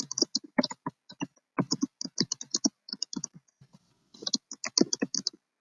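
Typing on a computer keyboard: quick, irregular keystrokes as a short sentence is typed, thinning out briefly a little past the middle.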